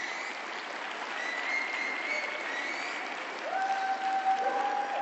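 Audience applauding in an indoor arena, with a few long, held calls from the crowd rising over the clapping in the second half.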